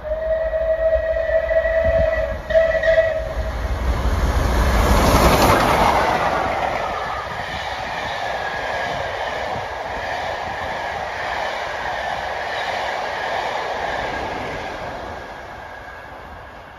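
Steam locomotive whistle sounding in two blasts, a long one then a short one, as the train approaches. Then the locomotive passes at speed in a loud rush that peaks about five seconds in, followed by the coaches rolling by with wheel clatter, fading as the train draws away.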